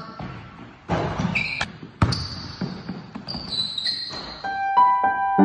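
A basketball bouncing and thudding on a hardwood gym floor, several sharp hits that ring on in the hall, with short high squeaks between them. Piano notes come in near the end.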